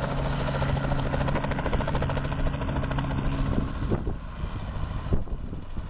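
Small piston helicopter landing, its rotor chopping with a fast regular beat over a steady engine hum. The hum drops away about four seconds in, leaving an irregular low rumble.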